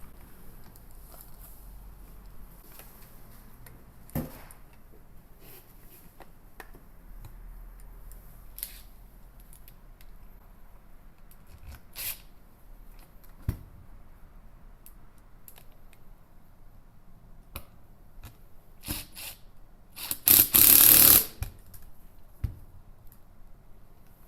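Scattered clicks and taps of tools and parts being handled, with one loud noisy burst lasting a little over a second near the end.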